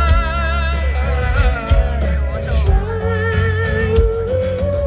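Live band music between sung lines: a steady bass and drum beat under long held notes that waver with vibrato.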